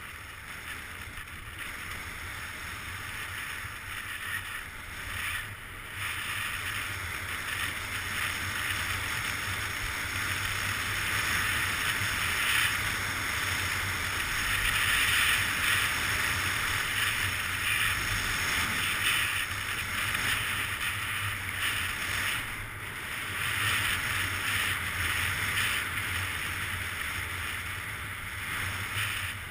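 Skis hissing and scraping over packed, groomed snow on a downhill run, with wind rushing over the microphone. The hiss swells louder through the middle and drops off briefly about six seconds in and again around twenty-two seconds in.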